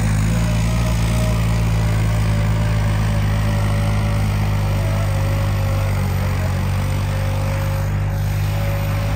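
New Holland 3630 tractor's diesel engine running steadily, a deep even drone with a thin steady whine above it.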